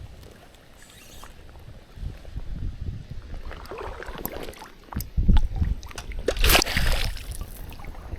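Water splashing and sloshing in irregular bursts, the loudest a little past the middle, over a low uneven rumble of wind on the microphone.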